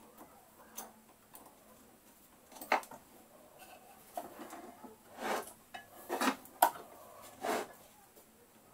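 Quiet hand-tool work on a Proxxon mini mill's base: a hex key clicking and clinking in the column's clamping screws as they are loosened, with several short scrapes as the column is handled. The sounds come in scattered ones and twos, with the louder scrapes in the second half.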